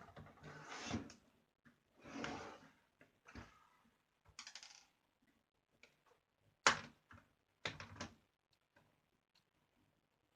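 A screwdriver and hands working on a laptop's plastic case: a few short scraping rustles, then sharp plastic clicks and knocks about seven and eight seconds in.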